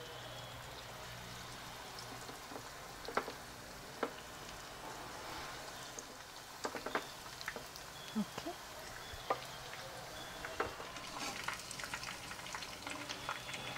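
Batter-coated fish pieces deep-frying in hot oil in a kadai: a soft, steady sizzle with scattered pops and crackles. The crackling gets busier near the end as more pieces go into the oil.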